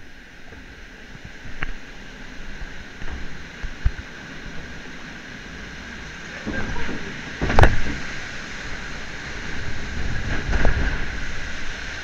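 Log flume boat riding the water channel: a steady rush of water, with a few knocks and thumps, the loudest a sharp one about seven and a half seconds in.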